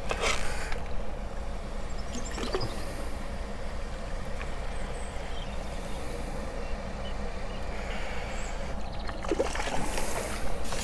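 Water splashing as a landing net is dipped into the pond near the start and again near the end, over a steady low rumble from motorway traffic and a pond aerator.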